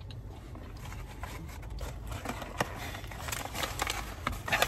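Close-up chewing of a crispy fried chicken sandwich, with small crackles and clicks that grow busier after about a second and a half, over a low steady rumble in the car's cabin.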